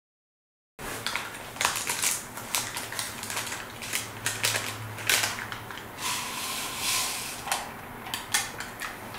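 Irregular clicking and clattering of hard objects, starting suddenly about a second in after dead silence, with a faint low hum underneath for the first few seconds.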